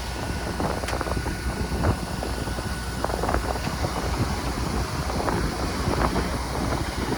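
Garbage truck's diesel engine running steadily, with wind buffeting the microphone and scattered light knocks.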